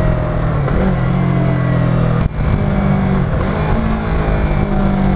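Yamaha R3's parallel-twin engine running under way through its stock exhaust silencer. The pitch holds fairly steady, with a short dip in level a little over two seconds in.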